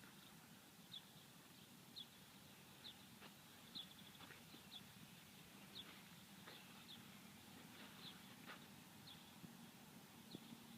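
Near silence with a bird's faint, short high chirps repeating roughly once a second.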